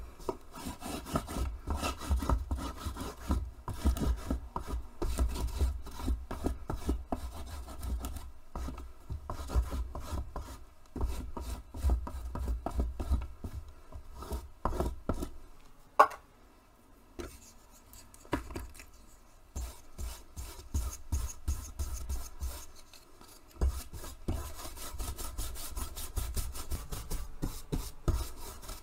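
Water-soluble pastel crayon scribbling over printed fabric on a tabletop: a quick, dense run of scratchy rubbing strokes with dull low thuds underneath, easing off briefly past the middle.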